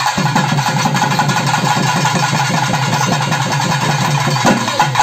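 Processional drums played in a fast, even roll, many strokes a second without a break.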